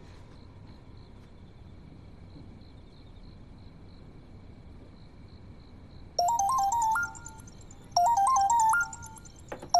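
Phone ringtone: a short electronic melody of stepped notes rings about six seconds in and again about two seconds later, with a third ring starting at the very end. Before it there is only a faint steady background.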